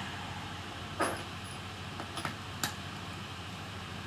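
A few light clicks of small laptop screws being handled and set down on a tabletop: one about a second in, then three in quick succession a second later, over a steady background hiss.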